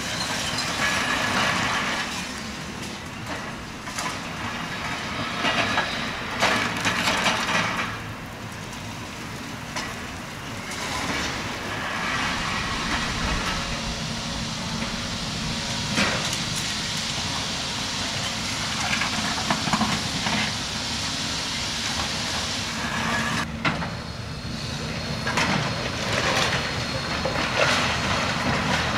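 Heavy demolition machinery running steadily, with repeated irregular crashes and clatter of rubble as the building is torn down; the crashes come loudest about a quarter of the way in, around the middle and near the end.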